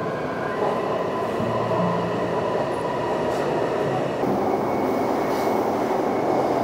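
Metro train running: a steady rolling noise of wheels on track with a faint steady whine.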